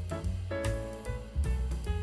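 Background music: held instrumental notes over a steady low beat.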